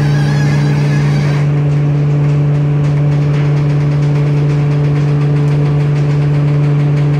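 Multi-opening plywood hot press's hydraulic system running as the platens close, a loud steady low machine hum. The higher hiss drops away about a second and a half in.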